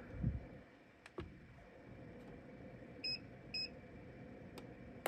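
Two short, high electronic beeps about three seconds in, half a second apart. A dull thud comes right at the start, and a few light clicks are scattered through.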